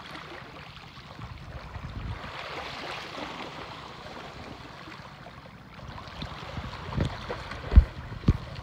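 Steady wash of wind and sea water lapping at the shore, with a few dull thumps near the end.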